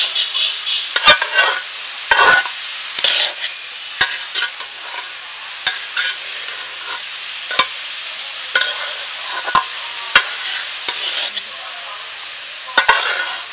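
Chopped onion leaves sizzling in oil in a wok-shaped metal pan while a metal spatula stirs them, scraping and clinking against the pan about once a second over a steady frying hiss.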